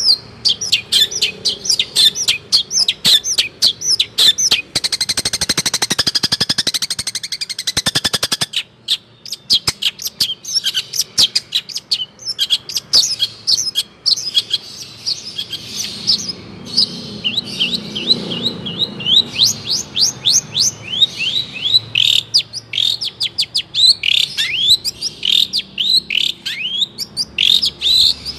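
Long-tailed shrike (cendet) singing vigorously: a fast stream of sharp chirps and short downward-sliding whistled notes, broken by a rapid buzzing rattle from about five to eight seconds in.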